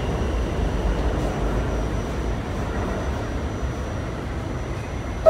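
Steady low rumble of a New York City subway car running on the track, heard from inside the car, with a faint steady high whine above it. The rumble eases slightly toward the end.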